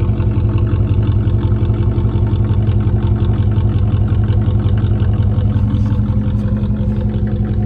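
Chevrolet Monte Carlo engine idling with a loud, steady, evenly pulsing exhaust rumble.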